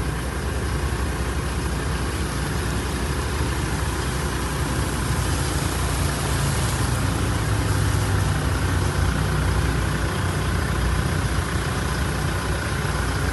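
A pickup truck's engine idling steadily, under an even hiss of rain.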